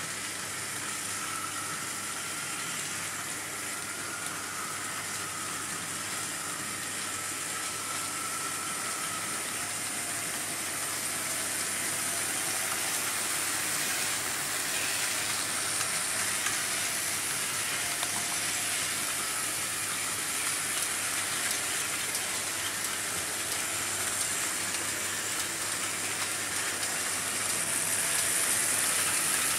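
Several Märklin H0 model trains running together on stamped-metal M-track: a steady rattling rumble of metal wheels on the rails, with a faint steady hum underneath, growing a little louder near the end.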